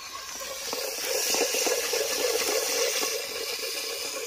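Hot liquid hissing and bubbling in a steel pot over a wood fire as it is stirred with a ladle, growing louder about a second in.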